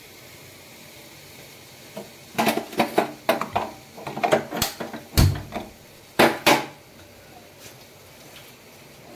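Clanks and knocks of utensils against a kadhai: a quick run of sharp hits starting about two seconds in and ending a little past the middle.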